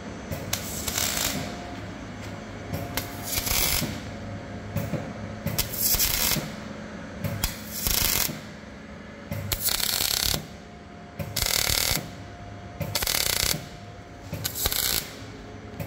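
Repeated short bursts of a noisy workshop tool, each about half a second to a second long, with quieter gaps between.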